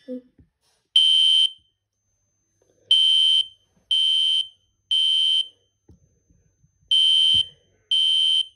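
System Sensor SpectrAlert Classic P1224MC fire alarm horn sounding loud, identical half-second blasts, about one a second, grouped in threes with a pause between groups: the temporal-three evacuation pattern. It is powered from two 9-volt batteries.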